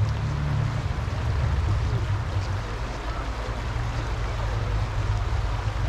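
Wind buffeting a GoPro action camera's microphone while riding a bicycle: a low rumble that flutters unevenly.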